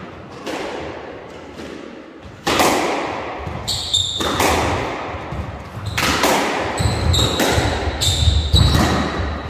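Squash rally: the ball cracking off rackets and the front and side walls every second or so, each hit echoing in the enclosed court. Short high squeaks of shoes on the wooden floor come in around the middle and again near the end as the rally speeds up.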